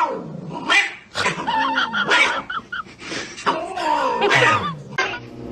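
A dog whining and crying in a run of short calls that bend up and down in pitch.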